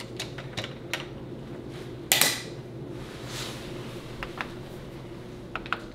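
Handling of a Crock-Pot slow cooker's lid and latch clips: a few light clicks and one louder metallic clatter about two seconds in, then quick clicks of its control-panel buttons near the end.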